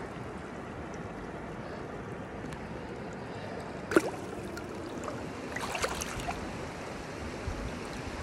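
Shallow stream running over stones, with one sharp splash about four seconds in and a few smaller splashes after it as a trout is released into the water.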